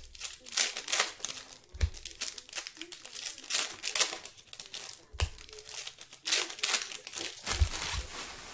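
Trading-card pack wrappers crinkling and tearing in irregular bursts as packs of basketball cards are ripped open by hand, with a few dull thumps as things are set down on the table.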